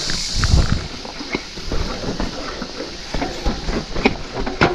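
Mountain bike clattering down a rocky trail: irregular knocks and rattles as it rides over rocks, with a sharp knock near the end. A low rumble and a hiss fade out within the first second.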